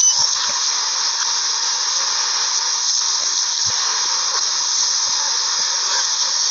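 A steady, loud hiss with a few faint low thumps.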